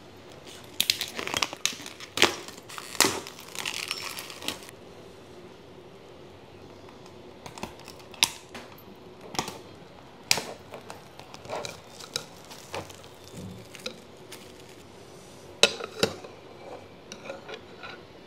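Plastic cling film crinkling and tearing as it is peeled off a lidded soup pot. The crinkling is dense for the first few seconds, then comes in scattered bursts with a few sharp clicks.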